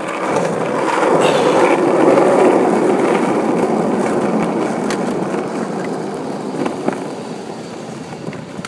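Skateboard wheels rolling over rough asphalt: a steady rolling noise that swells over the first couple of seconds and then slowly fades, with a couple of light clicks near the end.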